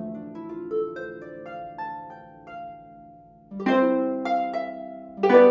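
Sampled Celtic harp from the Aria Sounds Celtic Harp library, recorded in a warm-sounding room: a rising run of single plucked notes, then two louder chords about three and a half and five seconds in, left to ring.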